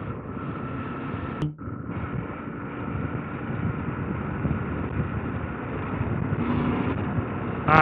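KTM 890 Adventure R's parallel-twin engine running at steady speed under wind and tyre noise while riding on gravel. The sound cuts out briefly about one and a half seconds in.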